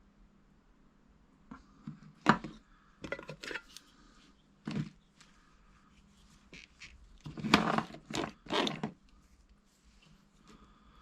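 Irregular knocks, clicks and clatter of tools and parts being handled during hands-on motorcycle repair work, loudest in a cluster near the end, over a faint steady hum.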